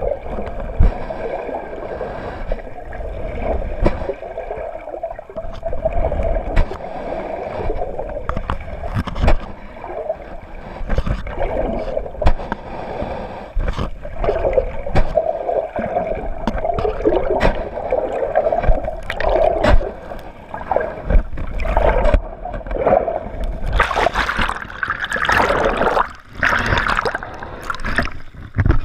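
Muffled water sloshing and gurgling around an underwater camera, with frequent knocks and clicks. A louder, hissier stretch of splashing comes near the end.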